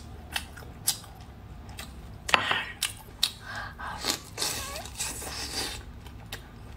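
Close-miked eating of a cooked shrimp: biting and wet chewing, with sharp mouth clicks and lip smacks, the loudest about two seconds in.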